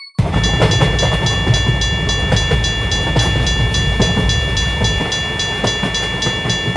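Japanese level-crossing alarm ringing its rapid 'kan-kan', about four to five strikes a second, over the loud rumble and clatter of a passing train; the train noise stops near the end while the bell keeps ringing.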